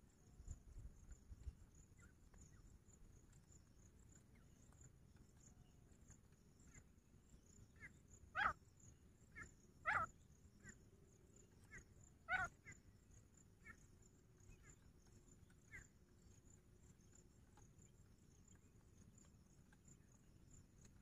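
Grey francolin calling: three loud, short, sharp notes near the middle, each a second and a half to two and a half seconds apart, among fainter short notes scattered through the first two-thirds. A steady faint high insect drone runs underneath.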